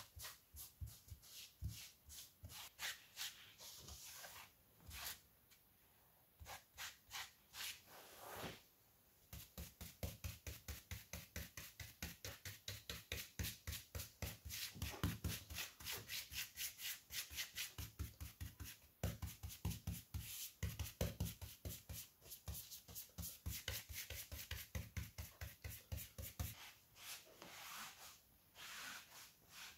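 Faint rubbing of a cloth and paintbrush working finish into a plywood clock face, in short back-and-forth strokes. The strokes are sparse at first, then quicken to about four a second for most of the rest.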